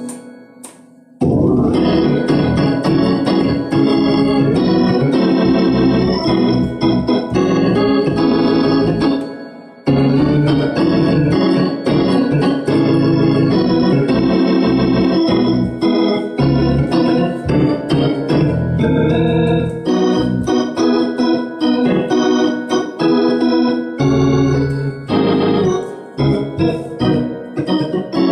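Two-manual drawbar console organ played with both hands, sustained chords over a bass line. It starts about a second in, drops away briefly just before ten seconds in, then comes straight back in.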